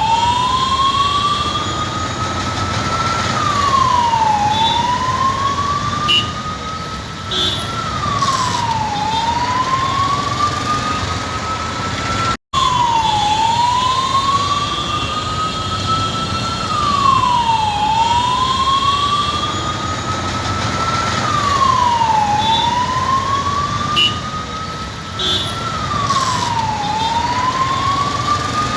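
Ambulance siren wailing: each cycle rises slowly in pitch for about three seconds, then falls quickly, repeating every four to five seconds over the steady noise of traffic. The sound drops out for an instant about twelve seconds in.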